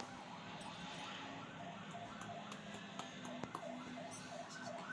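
Faint electronic siren-like warble, rising and falling about three times a second, with a low steady hum underneath.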